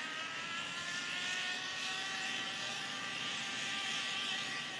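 Zip line trolley running along its steel cable with a rider: a steady whirring whine over a hiss, slowly falling in pitch.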